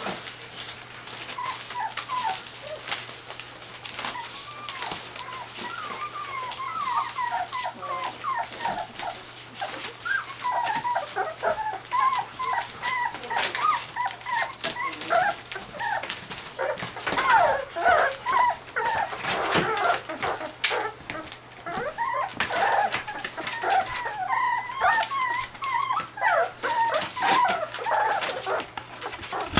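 A litter of young puppies whimpering, a stream of short high calls that grows busier about ten seconds in.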